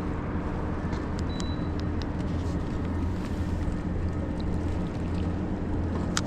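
Boat motor running steadily at low speed, holding the boat against an incoming tide, with small ticks and one sharp click near the end.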